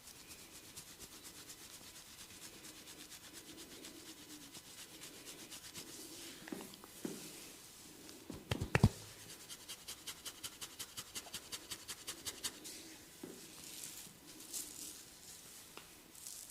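Hands rubbing briskly over a person's scalp and hair in a head massage: fast, even strokes at about five a second, with a few sharp smacks about halfway through.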